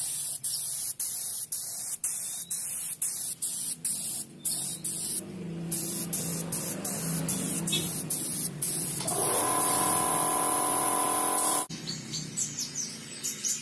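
Gravity-feed paint spray gun hissing in quick bursts, broken by brief gaps several times a second, as a candy-colour coat goes on; about halfway through, background music takes over, and birds chirp faintly near the end.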